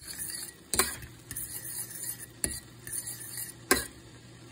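Metal fork stirring and mashing cooked mung beans in a stainless steel pot: a soft scraping of the thick mash, with three sharp clinks of the fork against the pot.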